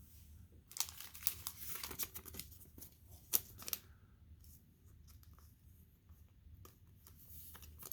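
Trading cards being handled and slid into soft plastic sleeves: light plastic rustling and scraping with a few sharp clicks over the first few seconds, then only faint taps.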